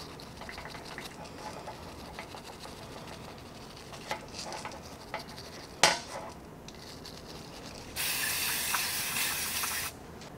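Light scrapes and clicks of a hand tool working on a revolver cylinder, with one sharp click about six seconds in. Near the end, an aerosol can sprays a steady two-second hiss of liquid onto the cylinder, then cuts off.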